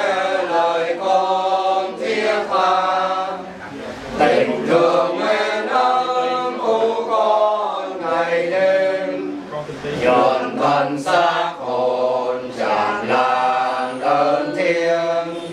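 A group of men's voices singing a Vietnamese Catholic prayer to the Holy Spirit together in unison, unaccompanied, on long held notes.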